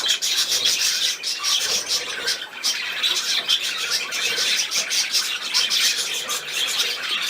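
Budgerigar chattering and warbling without pause, a fast run of short high chirps and scratchy notes.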